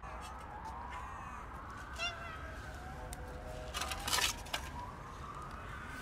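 Wet cat food being scraped out of a tin can with a makeshift metal utensil, a short burst of scraping strokes about four seconds in. Under it runs a high drawn-out tone that slowly rises and falls in pitch, with a brief run of quick chirps about two seconds in.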